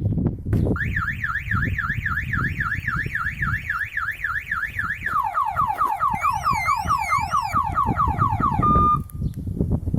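Van alarm siren of a Prestige two-way pager alarm system, set off by impact on the window glass. It warbles up and down about three times a second, switches about five seconds in to rapid falling sweeps, and ends with a short steady tone before cutting off near the end.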